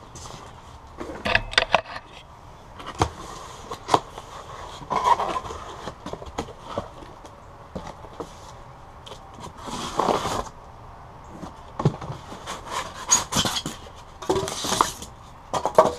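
A cardboard shipping box being opened and unpacked by hand: flaps pulled back and styrofoam packing slabs lifted out, giving irregular scrapes, rustles and knocks, with short bursts of handling noise about ten seconds in and near the end.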